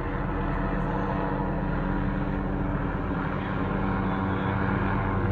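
A steady engine drone with several held tones, running evenly throughout.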